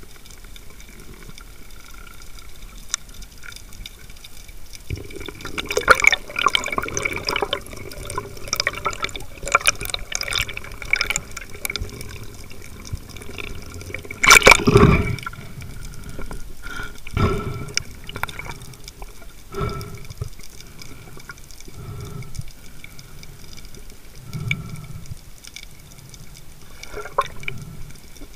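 Water sounds around an underwater camera: sloshing and bubbling with a run of crackles and clicks, and one loud rushing burst about halfway through.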